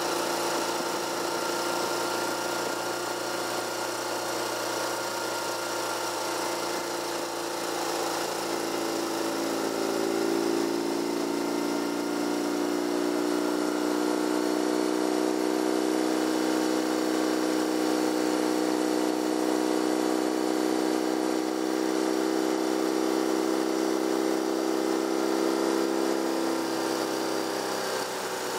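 Car engine running steadily while driving, heard from inside the cabin over road noise. Its pitch steps up about eight seconds in and drops back near the end.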